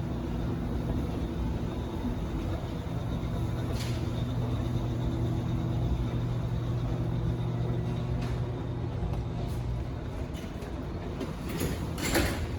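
Up escalator running with a steady low mechanical hum, a few faint clicks scattered through it. A short, louder noise comes near the end.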